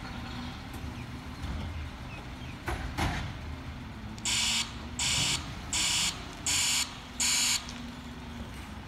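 Side-loader garbage truck's wide-band reversing alarm sounding five evenly spaced pulses, a little under one and a half a second, over the steady running of the truck's engine. Two sharp knocks come a few seconds earlier as the lifting arm handles the emptied bin.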